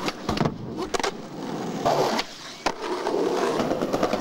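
Skateboard wheels rolling on pavement, broken by several sharp clacks of the board striking the ground from pops and landings, the sharpest a little past the middle.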